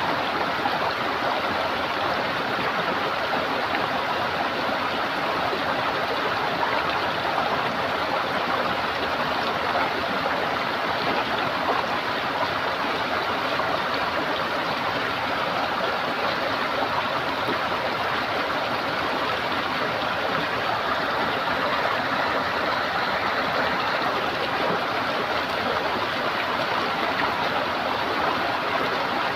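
Running water in a stream, gurgling steadily without change.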